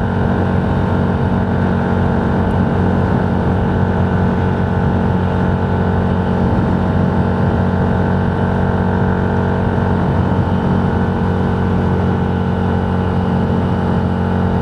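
Steady drone of a vehicle's engine and road noise, heard from inside the cab while driving at a constant speed.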